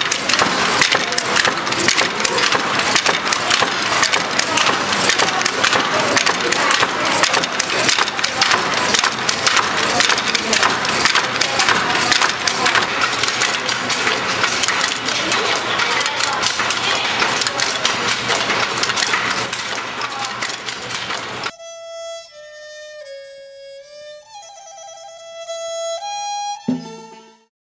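Continuous dense clatter of wooden silk hand looms, many quick sharp knocks of beater and shuttle. About 21 seconds in it cuts off suddenly and gives way to a slow instrumental melody of held notes.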